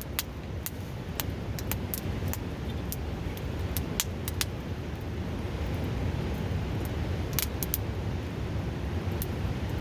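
Steady rushing of a nearby river, with a wood campfire crackling over it in scattered sharp pops, a couple of them close together about four seconds in and again past seven seconds.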